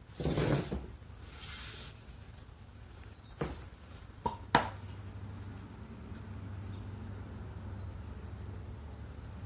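Pipe rails scraping as they are slid across a worktable, then a couple of sharp clacks from handling a small can and its lid, the second being the loudest sound. A low steady hum follows.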